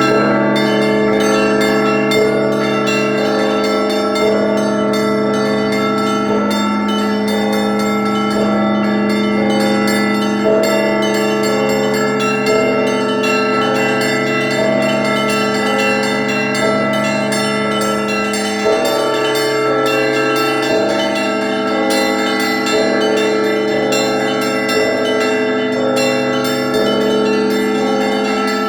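Russian Orthodox church bells rung by a bell ringer: a continuous peal of many quick, overlapping strikes on the smaller bells over the steady hum of the larger bells.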